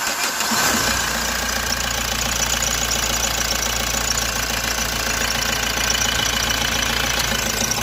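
Mahindra Scorpio 2.6-litre diesel engine starting: it catches less than a second in and settles into a steady idle. It is running with the injector return pipes off for a back-leakage test, which shows heavy back leakage from the number 1 injector.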